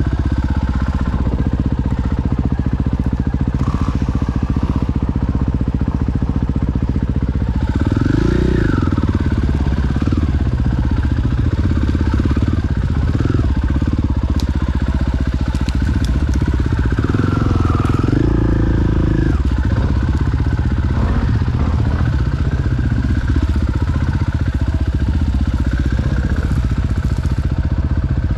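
Enduro motorcycle engine running as the bike is ridden over rough forest ground, the revs rising and falling with the throttle. The revs swell briefly about eight seconds in and again around eighteen seconds.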